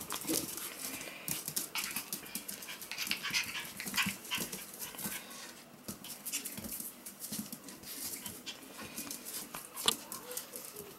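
Five-week-old Pomsky puppies moving about on a hard floor: irregular clicking and scuffling of small paws and claws, with soft puppy whimpers. There is one sharper click about ten seconds in.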